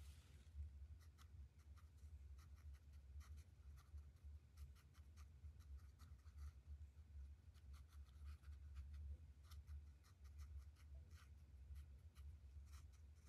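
Faint, irregular soft taps and scratches of a paintbrush dabbing thick paint onto paper, over a steady low hum.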